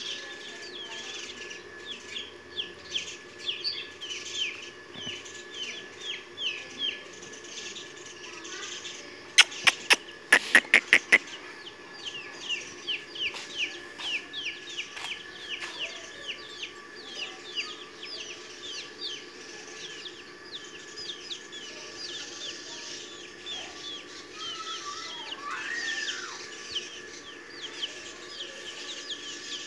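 Kulangi chicken chicks peeping: rapid, high, short descending peeps, several a second. About nine seconds in comes a quick run of about eight sharp clicks or knocks.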